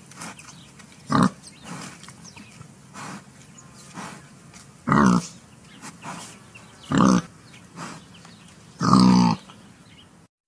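Common warthog grunting as it feeds: four loud, short grunts about two seconds apart, with softer grunts between them. The last grunt is the longest.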